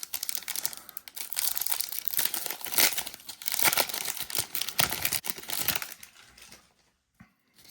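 Foil wrapper of a football card pack being ripped open and crinkled, a dense crackling that dies away about six seconds in, followed by light card handling.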